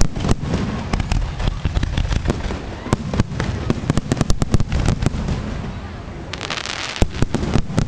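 Aerial fireworks display: a rapid barrage of shell bursts and bangs over a low rumble, thickest about three to four and a half seconds in. A stretch of hissing crackle comes about six seconds in.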